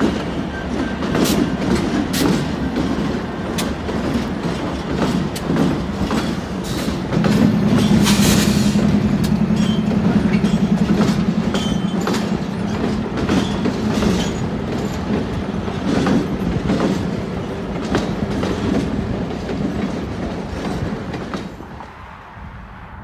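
Slow freight train passing with its diesel locomotives, the wheels clicking and clacking irregularly over rail joints and yard switches over a steady rumble. A locomotive's diesel engine drones louder for several seconds in the middle, and the sound drops near the end.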